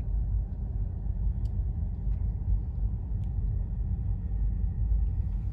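Steady low rumble of a car heard from inside the cabin as it moves slowly or idles, with a couple of faint ticks.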